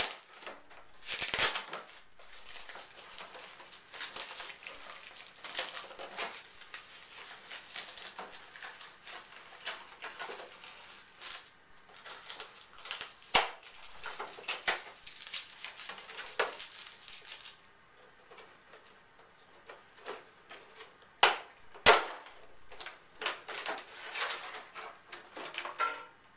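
Polystyrene foam packaging and plastic wrap being handled and pulled apart: irregular rustling, crinkling and scraping with scattered clicks and knocks. It goes quieter for a couple of seconds past the middle, then two sharper knocks follow in quick succession.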